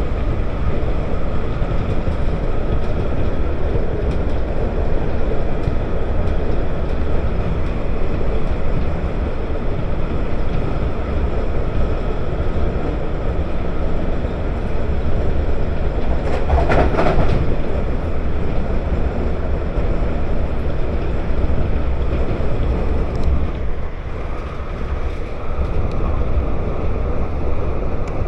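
Airport railway (AREX) electric train running at speed, a steady rumble and rush heard from inside the carriage. A brief louder burst of noise comes a little past halfway.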